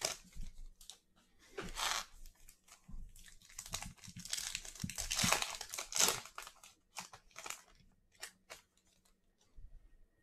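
Plastic wrapping crinkling and rustling as trading cards are handled, loudest a few seconds in, followed by a handful of light clicks and taps.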